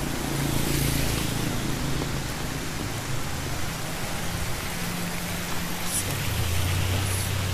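Steady rain falling on a wet street and on an umbrella overhead, with a small car driving slowly past on the wet road, its engine humming low.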